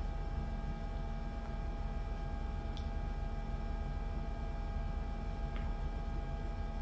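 Steady low hum and rumble of room noise with faint, constant high whining tones over it. Two faint ticks, about three seconds apart.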